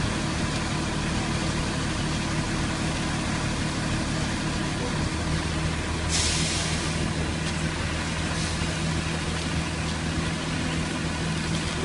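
Ready-mix concrete truck's diesel engine running steadily during the pour. Its low hum settles onto a steadier pitch about five seconds in, and there is a short hiss about a second later.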